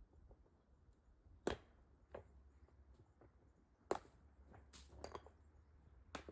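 Near silence: a low steady hum with a handful of faint, sharp clicks and taps scattered irregularly, the two loudest about one and a half and four seconds in.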